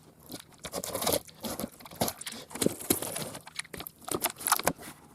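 Packaging being handled and pulled open: irregular crinkling, rustling and tearing.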